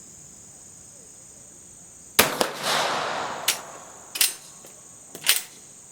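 A single rifle shot from a Swiss Vetterli bolt-action rifle about two seconds in, with a trailing echo, followed by a few sharp mechanical clicks. Crickets chirp steadily underneath.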